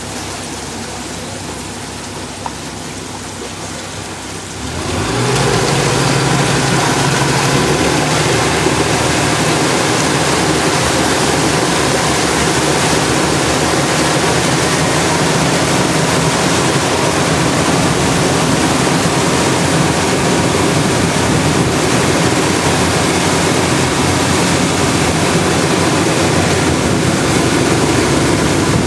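A tour boat's engine running low for the first few seconds, then opening up about four and a half seconds in and running steadily at speed, with water rushing past the hull.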